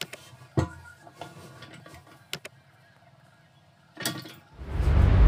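Plastic ball cock float valve and its float rod being handled and fitted: a few sharp clicks and knocks of plastic parts, then a loud low rumble of about a second and a half near the end.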